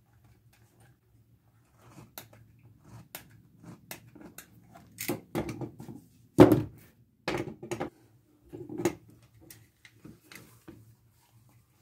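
Tools being handled and set down on a wooden workbench: a string of irregular clicks and knocks. The loudest is a single thunk about six and a half seconds in.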